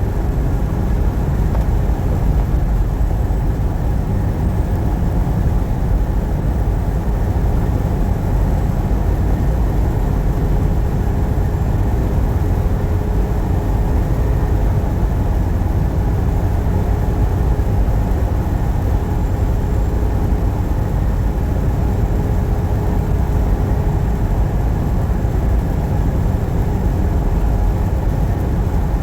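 Truck driving at a steady speed: a steady low rumble of engine and road noise with no change.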